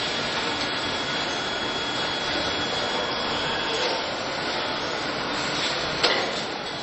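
Steady hissing hum of car assembly-line machinery on a factory floor, with one sharp knock about six seconds in.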